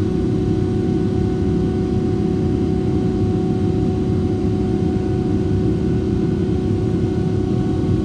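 Inside the cabin of a Boeing 777-300ER: the steady low rumble of its GE90 jet engines and airflow, with a steady hum over it.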